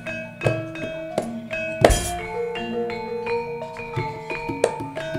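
Javanese gamelan playing: bronze metallophones struck in a steady stream of ringing notes, with drum strokes and one deep, heavy stroke about two seconds in.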